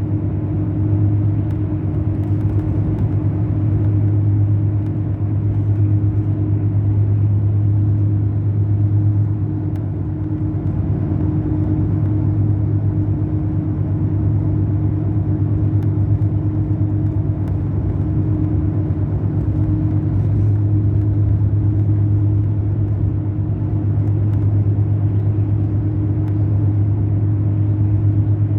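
Mercedes-Benz O500 RSD BlueTec5 bus engine running steadily, a low drone that dips slightly about ten seconds in.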